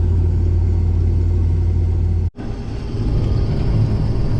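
Combine harvester running steadily: a low engine drone with a strong hum. A little over two seconds in it cuts abruptly to a rougher low rumble.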